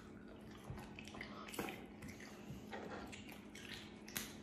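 Quiet, wet clicks and squishes of boiled crawfish and mussel shells being picked up and pulled apart by hand, a few separate clicks, over a faint steady hum.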